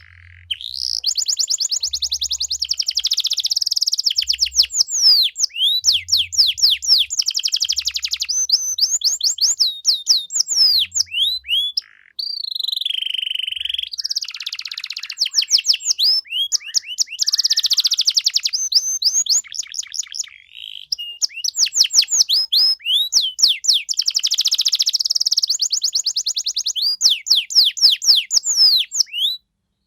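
Domestic canary singing a long, energetic song of fast trills and rapid repeated sweeping notes, with a short held whistle about halfway through and a brief break just before it.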